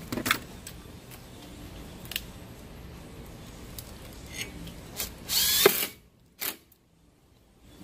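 Makita 18V cordless drill running in one short burst of under a second, driving in the small screw that holds the new brake rotor to the hub. A few light clicks and knocks of handling come before it.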